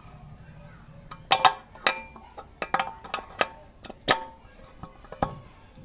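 Metal tools and parts clinking and knocking together irregularly, about a dozen sharp strikes that each ring briefly.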